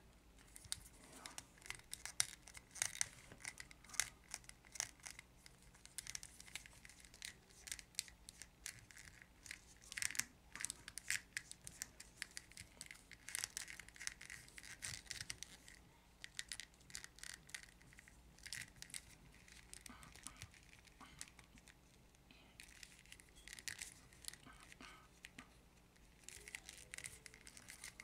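A plastic Teenage Mutant Ninja Turtles action figure being handled and posed: fingers rubbing and scraping on the plastic and the limbs being moved, a run of faint, irregular clicks and scratches that thins out for a while past the middle.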